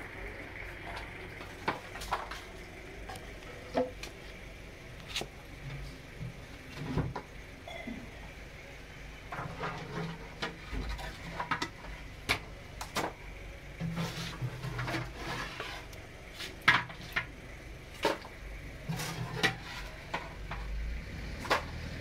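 Irregular clinks and knocks of a steel ladle, ceramic bowl and steel serving tray as a plate of siri paye is served from a clay pot, over a steady low background noise.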